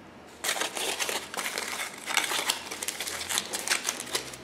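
Aluminium foil crinkling and crackling as it is handled and folded around a fingertip, starting about half a second in.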